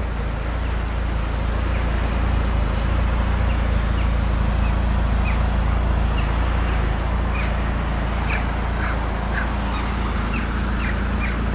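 Chevrolet Niva's 1.7-litre inline-four engine idling steadily. Short high chirps or squeaks come and go over it, more often in the second half.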